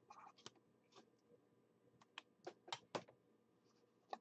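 Faint, scratchy strokes of a pen writing by hand on a paper sticky note, a few louder strokes about halfway through.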